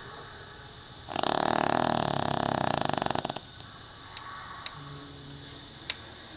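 Pekingese dog snoring: one loud, rattling snore begins about a second in, lasts about two seconds and breaks into a flutter as it ends. A faint breath and a few small clicks follow.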